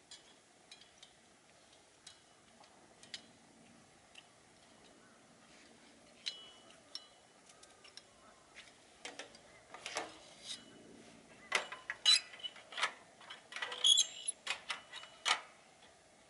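Light metallic clicks and clinks of small camping gear being handled and fitted together, a few with a short ring. They are sparse at first and come thicker and louder in the second half.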